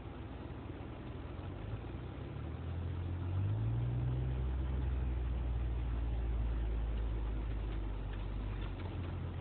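Jeep Wrangler JK engine running as the Jeep drives a sandy off-road trail, heard from inside the vehicle. The low drone rises in revs about three seconds in and eases off near the end.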